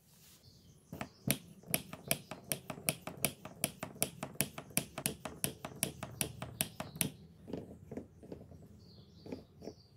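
Homemade PVC hydraulic jack's hand pump being worked, a sharp click with each stroke at about four a second while the steel ram rises. The clicks stop about seven seconds in, leaving a few weaker ones.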